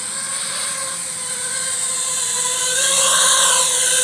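FPV quadcopter motors and propellers whining, growing louder as the drone closes in. From about three seconds in, the pitch swells and dips as the throttle changes.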